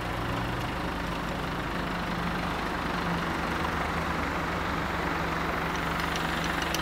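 Diesel engine of a truck-mounted aerial work platform idling steadily, with a few light clicks near the end.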